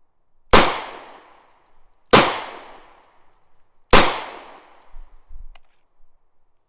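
Three gunshots, evenly spaced about a second and a half apart, each followed by a trailing echo that dies away over about a second.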